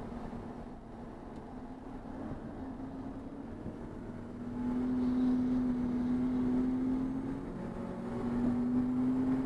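Race car engine pulling hard, its note rising slowly and getting louder about halfway through. Near the end it breaks off, comes back a little lower and climbs again.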